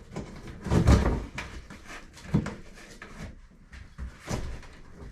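Cardboard shipping box being opened and its packaging handled: rustling cardboard with several knocks and thumps, the loudest a low thump about a second in.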